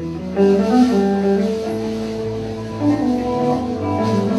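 A live rock band playing Middle Eastern–flavoured Jewish rock, led by electric guitar over drums. It gets louder about half a second in, and low bass notes join partway through.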